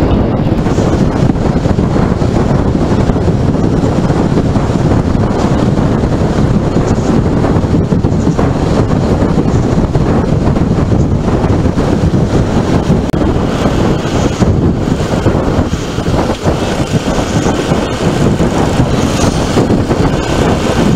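Motorcycle moving at highway speed: steady wind buffeting on the microphone over engine and road noise.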